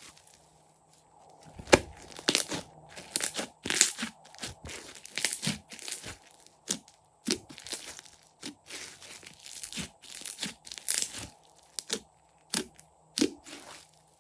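Crunchy slime being squeezed and kneaded by hand, giving a dense, irregular run of crackles and pops.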